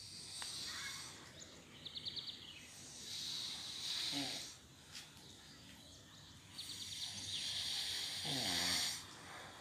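A sleeping girl snoring: three long rasping breaths a few seconds apart, some with a rapid fluttering rattle. The second and third each end in a falling moan.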